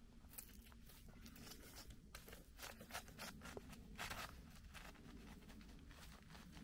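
Near silence with faint, irregular small rustles and clicks, and a slightly longer rustle about four seconds in.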